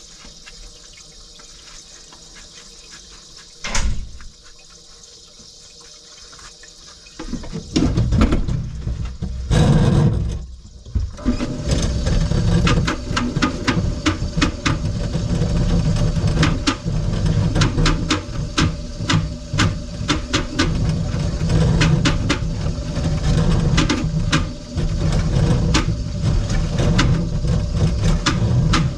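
Faint running water, then from about seven seconds in a drum drain-cleaning machine running, its motor turning the drum while the cable clicks and rattles as it is drawn back in. A single sharp knock comes just under four seconds in.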